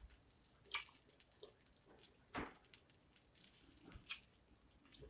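Mouth sounds of eating corn on the cob: three short wet clicks as the kernels are bitten and chewed, about a second and a half apart, over near silence.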